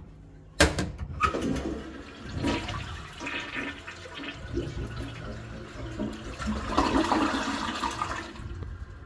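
Daelim Dobidos DC-407G toilet flushing: a sharp click about half a second in, then rushing water for about eight seconds that dies away near the end.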